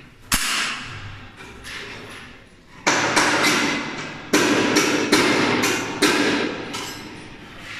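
Sharp metal knocks as the door's drive motor is worked onto its bracket on the roller head box: about five loud strikes at uneven intervals, each ringing on briefly.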